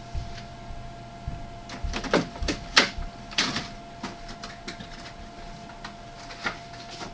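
Handling noise: a run of scattered clicks, taps and rustles, busiest about two to four seconds in and again briefly near the end, over a faint steady hum.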